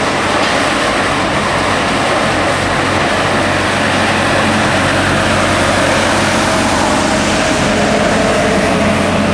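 Motorised street sweeper running close by: a loud, steady machine noise of engine and sweeping brushes, with a low hum underneath.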